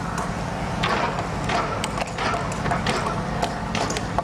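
Steady low drone of heavy machinery engines, with irregular knocks and clatter of wooden timbers being pried apart and handled.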